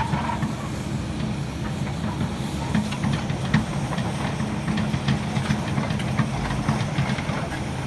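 Heavy diesel engine of earth-moving machinery running steadily, with scattered metallic clanks and knocks over a hissing noise.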